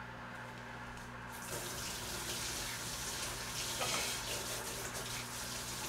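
Kitchen tap running into a sink, a steady rush of water that starts about a second and a half in.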